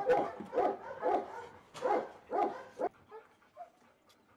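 Dog barking repeatedly, about two barks a second, stopping about three seconds in.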